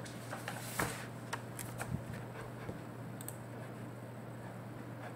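A few short, soft computer mouse clicks in the first three seconds as programs are switched, over a steady low electrical hum.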